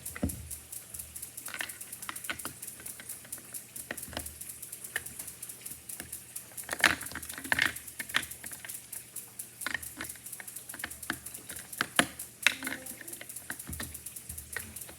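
Scattered small plastic clicks and taps from handling a speed cube timer while its two AAA batteries are put back in the right way round and the battery cover is refitted. A few louder knocks come about seven seconds in and again near twelve seconds.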